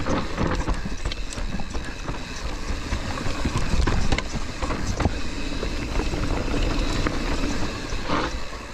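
Mountain bike descending rough, rocky singletrack: tyres rumbling over dirt and rock with a constant irregular clatter of knocks from the chain, suspension and frame.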